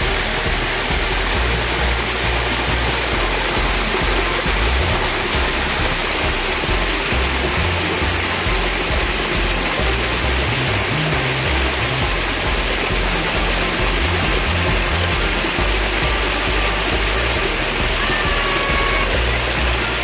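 Background music laid over the steady rush of a small waterfall cascading down rock.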